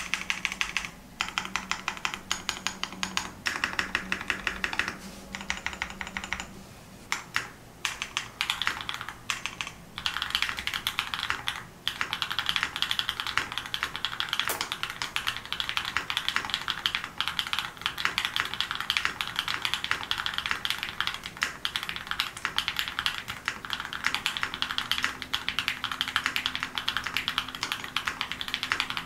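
Fast typing on a GEON F1-8K mechanical keyboard with a polycarbonate bottom case and Samsin Jjajang switches: dense, high-pitched clacks as the keys bottom out, a little higher in pitch than black switches. The typing stops briefly a few times.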